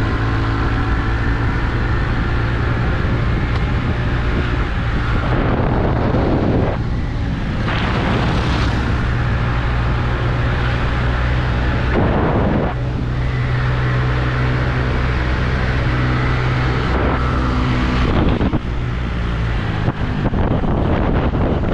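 Vehicle engine running steadily during a ride, with wind buffeting the microphone in gusts. The engine note drops away near the end.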